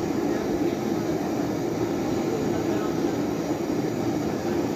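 A steady, even mechanical drone, like machinery running continuously.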